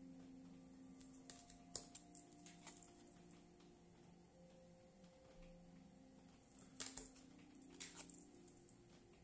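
Near silence: faint taps and clicks of tarot cards being handled, the sharpest about two seconds in and again near seven seconds, over a faint steady hum.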